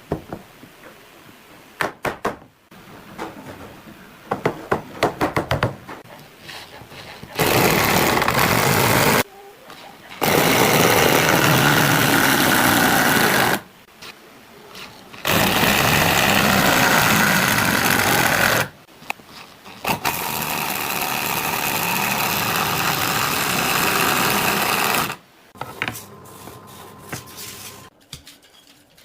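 Chainsaw cutting into a log in four long runs of several seconds each, stopping briefly between them, after a few sharp knocks on wood.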